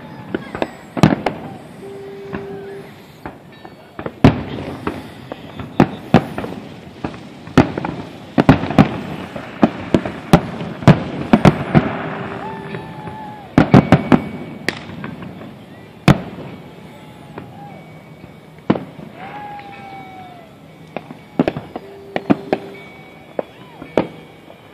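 Aerial fireworks shells bursting: dozens of sharp bangs at irregular spacing, several in quick clusters.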